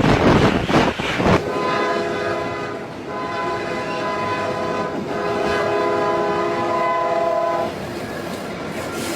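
A loud noisy rush for about the first second and a half, then a train horn sounding a steady multi-note chord for about six seconds before it stops.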